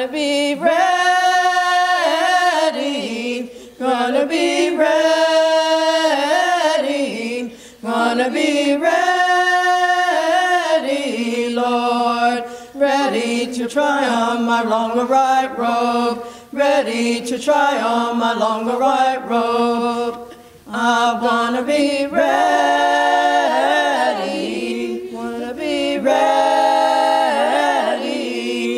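A small group of women singing a cappella together, long held notes in several phrases with brief breaths between them.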